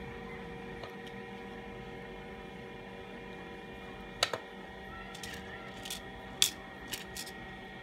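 Small sharp clicks as the phone's flex-cable connectors are pressed into their sockets on the circuit board, a handful of them with two louder ones about four and six and a half seconds in, over a steady electrical hum.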